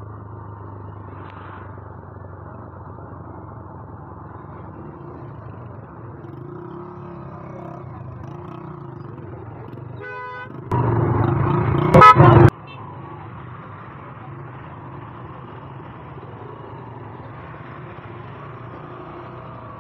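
Motorcycle engine running steadily at low speed in slow traffic. About eleven seconds in, a vehicle horn gives one loud blast of nearly two seconds, just after a short quick tooting.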